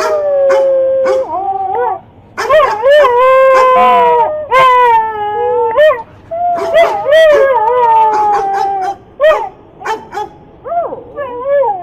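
Dog howling and whining in long, wavering calls, each lasting one to three seconds, then shorter yelping calls near the end.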